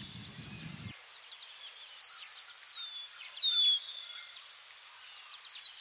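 Outdoor chorus: insects chirping in a fast, regular high train, with a bird repeating a short downward-sliding whistle. A low background rumble cuts off about a second in.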